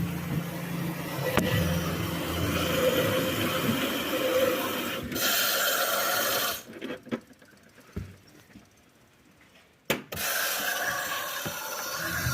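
Washing machine running through its wash cycle: a steady rush of water and drum noise that stops for about three seconds and starts again after a click.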